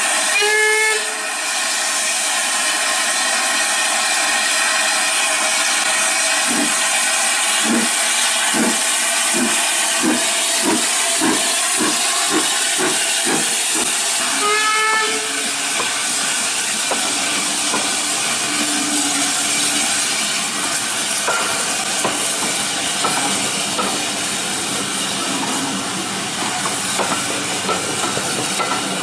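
Austerity 0-6-0 saddle tank steam locomotive sounding a short whistle, then pulling away over a steady hiss of steam. Its exhaust chuffs start slow and come faster and faster as it gathers speed. A second short whistle comes about halfway through, then the coaches rattle past on the rails.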